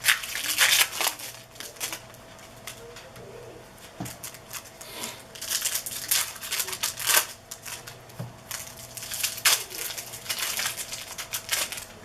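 Trading card pack wrappers crinkling and tearing as packs are ripped open, with cards being handled. The noise comes in irregular crackly bursts, loudest near the start and around the middle.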